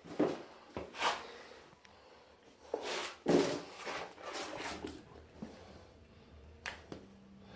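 Irregular knocks, rubs and scrapes of hands working, loudest in the first half and thinning out, with a single sharp click near the end and a faint low hum coming in just after it.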